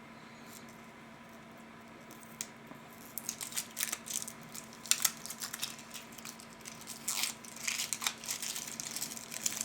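Packaging of a felt-tip eyeliner pen being crinkled and torn open by hand: an irregular run of sharp crackles and rustles starting a couple of seconds in, over a faint steady hum.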